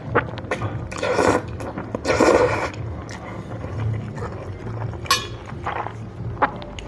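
Close-up mukbang eating sounds of spaghetti: wet mouth and chewing noises with scattered small clicks, and two longer noisy bursts about one and two seconds in.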